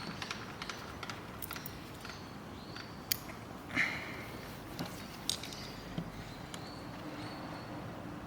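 Scattered light metallic clicks and clinks of hand tools and parts being handled during differential assembly, with a few sharper taps around the middle.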